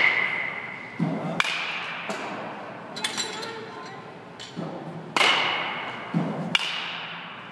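A bat hitting baseballs thrown by a pitching machine in a batting cage. Sharp knocks come in two clusters about four seconds apart, and the loudest ring on briefly.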